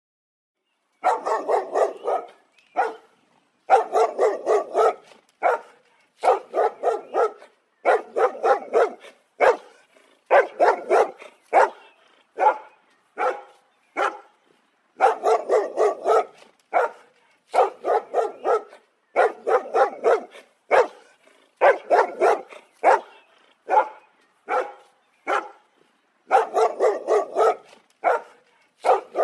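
A dog barking in quick volleys, about four or five barks a second, with short pauses between volleys; the barking starts about a second in.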